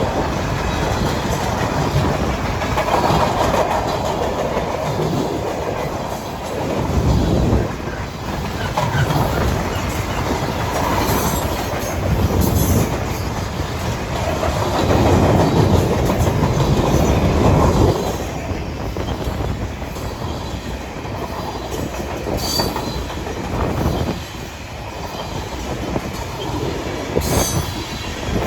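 A Great Lakes Central Railroad freight train rolling past on the rails, with a steady rumble that swells and eases. A few brief high wheel squeals come through, around the middle and near the end.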